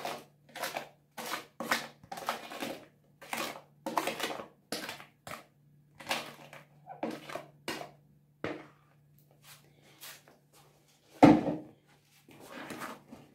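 A spoon scraping and stirring wet batter in a plastic bowl, in short strokes about two a second, thinning out later, with one louder knock about eleven seconds in. A faint low hum runs underneath.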